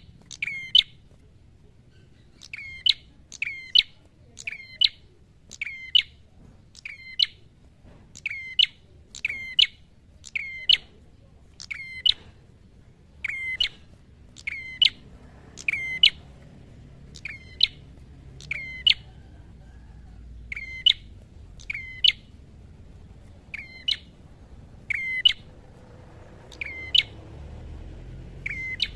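Ashy tailorbird (prenjak kepala merah) calling: sharp, high notes repeated about once a second, many in quick pairs, as a loud territorial song.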